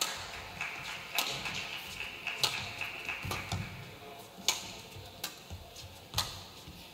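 Badminton rally: rackets striking a feathered shuttlecock back and forth, a sharp hit roughly every second.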